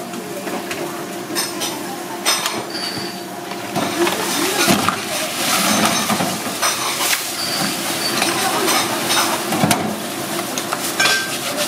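Hard shellfish shells, scallops and clams, clinking and clattering against each other in a plastic basket as gloved hands scrub them under running tap water, with the water's splashing from about four seconds in. Before that, a few light taps and knocks on a cutting board.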